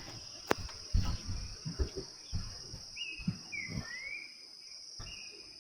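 Forest ambience: a steady high insect drone, with a bird giving several short gliding whistles about three seconds in. Scattered soft knocks and thumps, the loudest in the first second.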